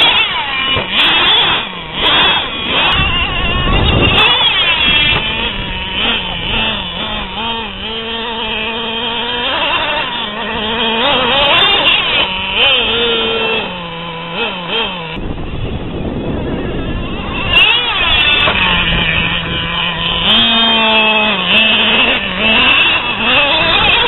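Small two-stroke nitro (glow-fuel) engine of a Traxxas Revo 2.5 radio-controlled monster truck revving up and down as the truck is driven over dirt jumps, its high-pitched whine rising and falling over and over.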